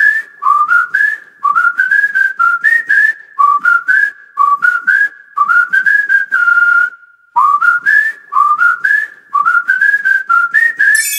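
A whistled tune of short rising phrases, a few quick notes each, repeating about once a second, with one longer held note a little past the middle.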